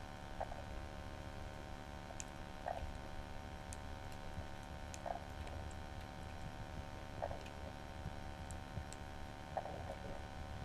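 Faint underwater noise through a submerged camera's housing: a steady low hum, a short blip about every two seconds, and scattered faint ticks.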